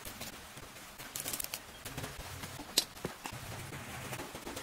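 Faint crinkling and rustling of plastic instant-noodle seasoning sachets being squeezed out, with one sharp click just under three seconds in.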